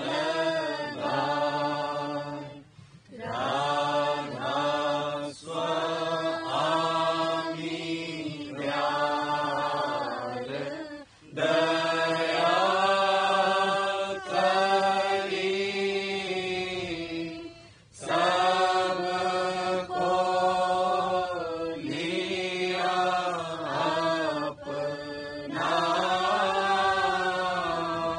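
Radhasoami shabd path: a devotional hymn chanted in long melodic phrases with short pauses between them.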